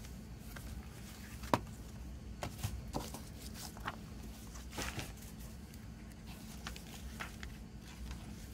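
Hands handling a CD digipak and its paper inserts: scattered light clicks and taps of plastic tray and card, with paper rustling as a folded booklet is opened and its pages turned. The sharpest click comes about a second and a half in, and most of the handling falls in the middle of the stretch.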